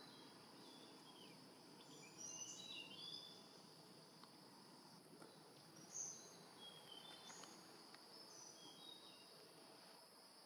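Faint forest ambience: a steady high insect drone, with a few short high chirps scattered through it.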